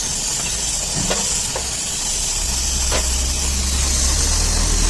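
Steady high hiss of pressurized gas during a leak test on an inverter AC compressor. A low hum comes in about halfway, with a few faint clicks.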